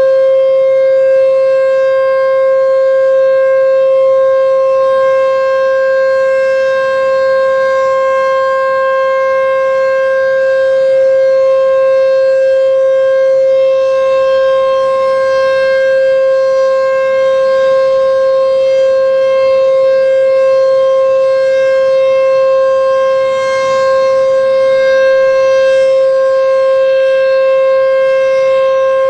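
H.O.R. Super-Sirex 50 HP outdoor warning siren sounding a single steady, unchanging tone: the Alert signal of its scheduled test. The level wavers only slightly throughout.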